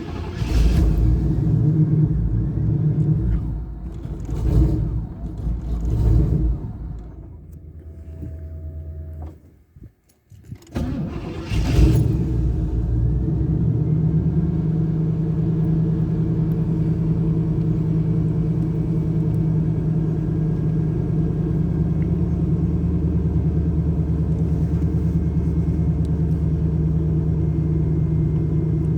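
Chevrolet Camaro IROC-Z's V8 running unevenly with surging revs, sagging and stalling about ten seconds in. It is started again and settles into a steady idle. The engine has a rough-idle and stalling problem when warm.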